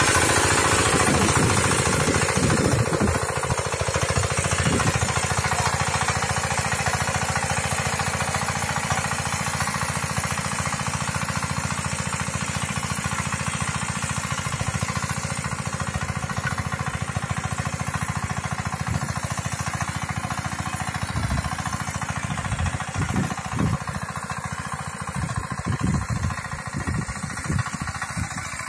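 Walk-behind rotovator's engine running with a rapid knocking beat as its tines till the soil, growing fainter as the machine moves away.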